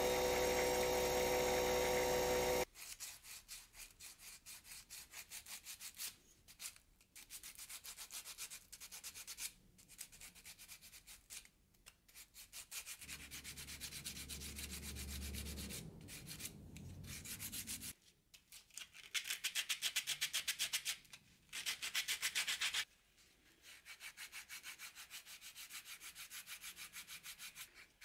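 A flexible-shaft rotary tool runs with a steady whine for about two and a half seconds, sanding a padauk wood figurine with a sanding drum, then cuts off suddenly. After that the figurine is sanded by hand: quick back-and-forth strokes of sandpaper, about three a second, come in spells with short pauses, the loudest a little past the middle.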